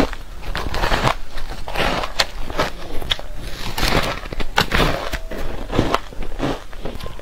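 A person biting into and chewing soft shaved ice, an irregular run of crunches and crackles.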